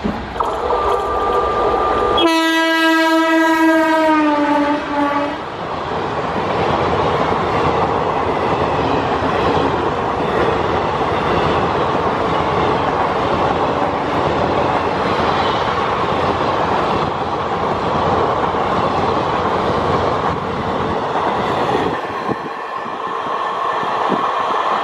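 Electric locomotive's horn sounding as an express train approaches at speed, the louder second blast sliding down in pitch as the locomotive passes. Then the steady rumble and clatter of the passenger coaches' wheels over the rail joints as the train runs through without stopping, easing at about 22 seconds.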